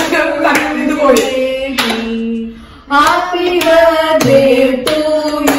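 Voices singing a birthday song while hands clap along in a steady beat of about one and a half claps a second. A long held note about two seconds in is followed by a brief pause before the singing resumes.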